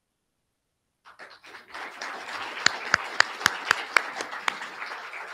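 Audience applause starting about a second in. In the middle, a string of sharp, louder claps, about four a second, stands out above it.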